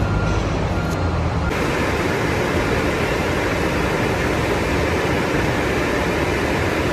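Steady background machinery noise of an industrial plant floor. About a second and a half in it changes abruptly from a low hum to a broader, hissier rush.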